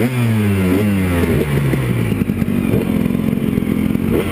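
Two-stroke KTM dirt bikes (a 300 EXC, a 250 SX and a 250 EXC) running and revving. Several quick throttle blips rise and fall back in pitch in the first couple of seconds, then the engines settle into a rougher, steadier run.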